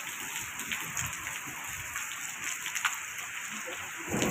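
Steady rain falling on a road and nearby surfaces: an even hiss with a few sharper drop taps through it.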